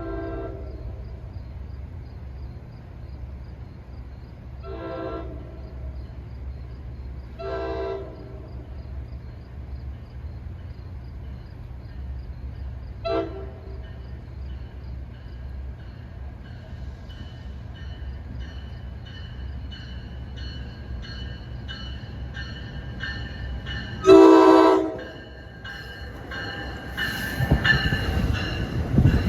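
NJ Transit train's locomotive horn blowing a series of blasts for the grade crossing, a brief toot about 13 seconds in and a loud long blast about 24 seconds in, as a crossing bell rings about twice a second under a low rumble. Near the end the train's noise rises as it passes.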